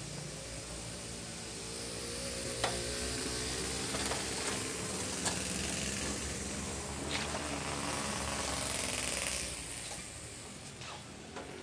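Hiss of disinfectant mist from a SWAN backpack sprayer's wand, with a few sharp clicks from the sprayer; the hiss fades out near the end.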